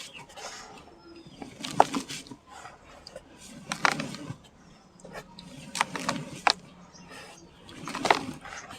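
Dry sand-and-cement chunks crumbling: a gritty crunch with a soft low thud and a patter of falling bits, repeated about every two seconds, four times.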